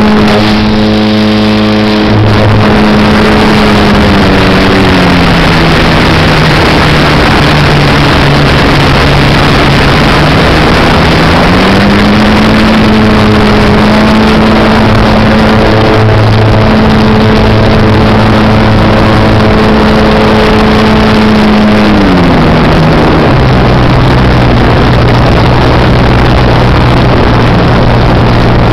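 Engine of a radio-controlled Laser 200 aerobatic model plane, heard from a camera on board over loud wind noise. It runs at a steady high pitch, throttles back about five seconds in, opens up again around twelve seconds, and throttles back again near twenty-two seconds.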